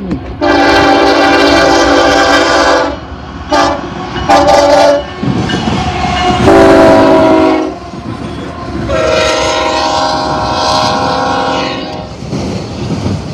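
BNSF diesel locomotive air horn sounding a series of blasts at close range: a long blast, two short ones, another medium blast, then a final long one. Under the horn, the train's wheels rumble and clatter as the locomotive and then the autorack cars roll past.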